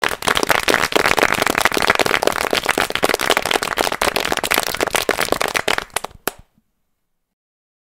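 Loud, dense, rapid crackling of many sharp pops in quick succession, cutting off abruptly about six and a half seconds in.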